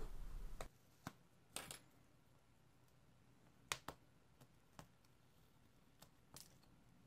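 Near silence broken by a handful of faint, sharp clicks and taps, spread irregularly: a small metal tool and fingers working at a tablet's plastic screen frame.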